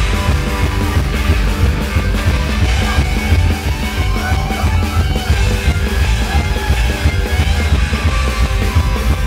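Loud rock music, heavy in the bass, playing without a break.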